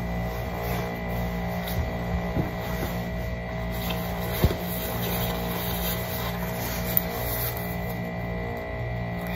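Steady low mechanical hum with the rustle of a nylon puffer coat being put on a toddler; two sharp clicks about four and a half and seven seconds in.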